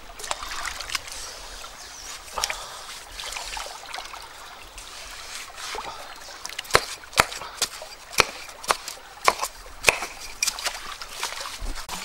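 Shallow stream water sloshing and trickling around a person wading, then a wooden stick jabbing into a wet mud bank: a run of sharp strikes about two a second in the second half.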